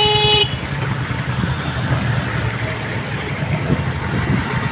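A vehicle horn beeps once, briefly, right at the start, over the steady low rumble of motor vehicle engines running close by in slow traffic.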